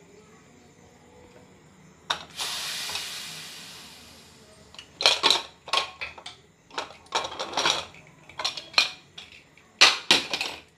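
Leftover steam hissing out of an aluminium pressure cooker as it is opened: a click about two seconds in, then a hiss that fades over about two seconds. Then a run of metallic clicks and clatter as the inner lid is worked loose and lifted out.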